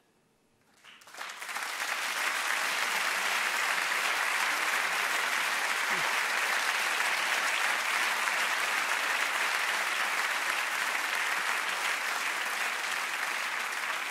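Audience applauding: the clapping swells up about a second in out of a brief silence and then holds steady.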